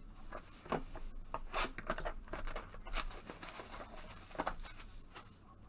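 Clear plastic shrink wrap being torn and pulled off a sealed hobby box of baseball cards, crinkling and crackling in short irregular bursts.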